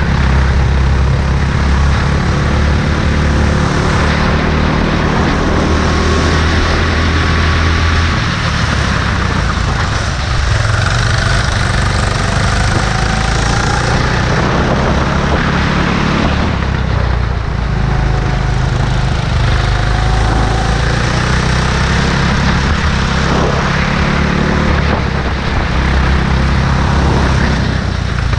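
Go-kart engine running hard at racing speed, heard close up from on board the kart. The engine note drops and picks up again several times as the kart goes through corners.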